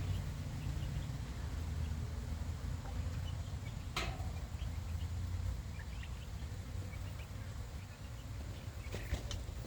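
Backyard chickens making short, scattered chirps and soft calls over a steady low rumble, with one sharp click about four seconds in.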